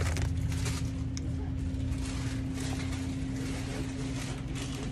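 Steady low hum of shop machinery with one constant tone, and faint rustling over it.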